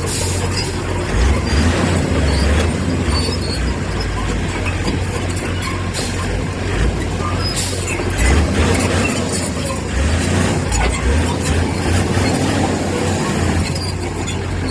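Heavy diesel earthmoving machinery running under load, a steady low rumble with a few sharp knocks.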